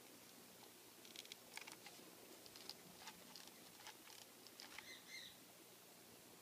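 Near silence: faint scattered ticks and clicks as a hot glue gun is worked against a ribbon bow, with a brief faint squeak about five seconds in.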